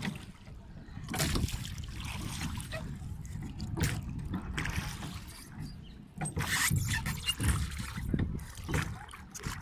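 Oars of a small rowboat dipping and pulling through the water in irregular strokes, with splashing and water running off the blades.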